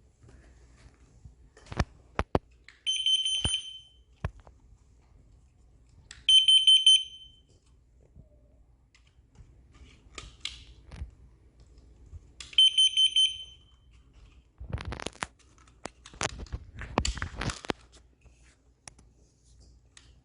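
Three short, shrill electronic beeps, each under a second, at uneven intervals. Sharp clicks and knocks fall between them, with bursts of rustling or crackling near the end.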